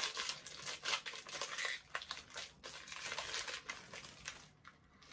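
Plastic snack wrapper crinkling and crackling as it is pulled open by hand, thinning out near the end.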